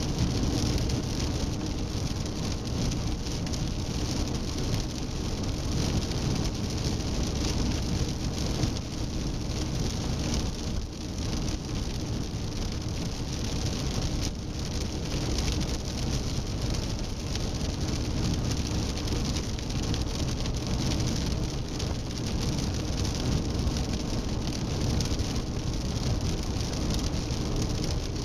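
Seat Leon 1M being driven on the road: a steady rush of tyre and road noise over a low rumble, with no distinct events.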